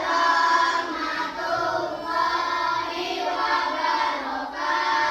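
A group of children singing a song together, with held notes and no pause.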